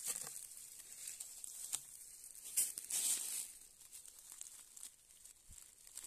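Dry leaf litter and twigs rustling and crackling in a few short bursts, loudest about three seconds in, then quieter.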